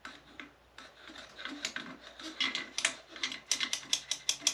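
Light irregular clicking and tapping of hand handling, sparse at first and coming quicker and louder in the second half.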